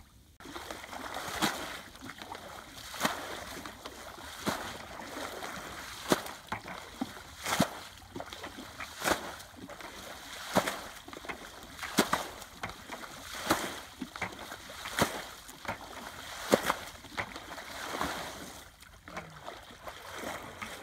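Muddy paddy water being bailed with a plastic bucket, scooped and flung out: a sharp splash about every one and a half seconds, a dozen times, over a steady wash of water sound.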